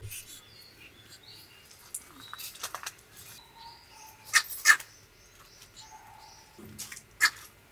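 A small Pomeranian yapping: two sharp yaps in quick succession about halfway through and another near the end, with a few softer yips before them. Birds chirp faintly in the background.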